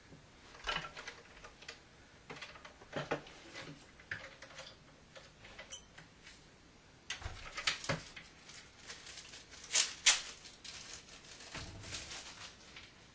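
Irregular small clicks, taps and light knocks of wooden shutter panels and their hinge hardware being handled while shims are fitted to the hinges, with two sharper knocks close together about ten seconds in.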